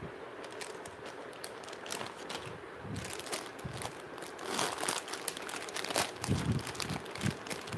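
Plastic jewellery pouches crinkling and rustling as they are handled and searched through, getting busier and louder about three seconds in.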